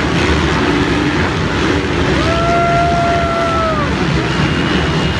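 Many motocross bikes' engines running and revving at once, dense and wavering in pitch. A clear higher note is held for about two seconds near the middle and drops away at its end.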